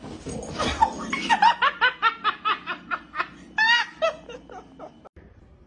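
High-pitched laughter in a quick run of short 'ha' bursts, about five a second, with one louder burst near the end. It stops abruptly about five seconds in.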